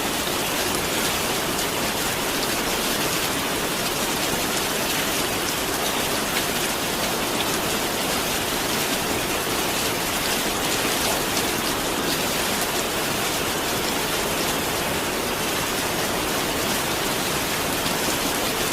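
Rain falling steadily: an even hiss of many drops with no let-up.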